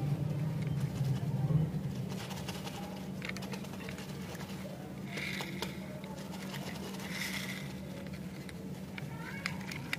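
Light clicks and rustles of a small plastic toy motorcycle being handled and turned over in the hands, over a steady low hum that is louder for the first two seconds.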